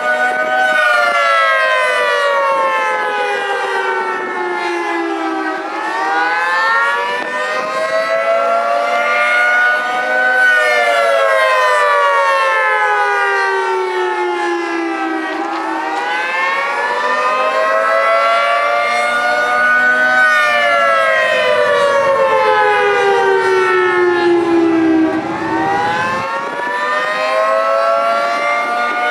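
Federal Signal 3T22 three-tone warning siren sounding the attack signal. Its chord wails down for about five seconds and back up for about five, in repeated cycles, three falls and three rises.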